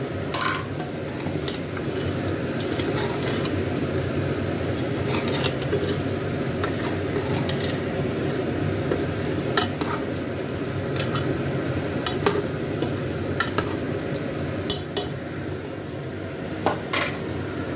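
Steel ladle stirring apple gourd pieces into curry in an aluminium pressure cooker pot, with irregular sharp clinks and scrapes of metal on metal, over a steady low rushing noise.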